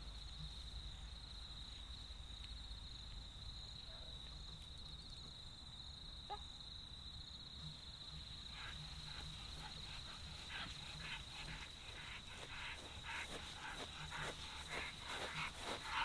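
Insects trilling steadily at a high pitch, over a low wind rumble. From about eight seconds in, irregular rustling grows louder, like steps through long grass.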